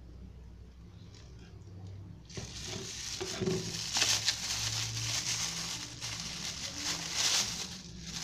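Clear plastic wrap crinkling and crackling as hands peel and crumple it off a plastic lid, starting about two seconds in after light handling.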